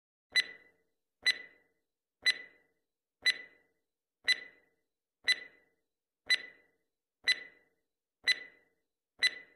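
Countdown-timer sound effect ticking once a second, ten short, sharp ticks in a row as an on-screen stopwatch counts down the answer time.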